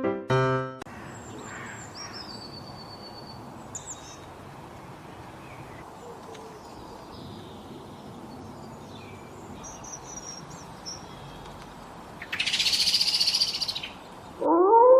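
Faint bird chirps and short high calls over a steady outdoor background hum. About twelve seconds in comes a loud hissing buzz lasting about a second and a half.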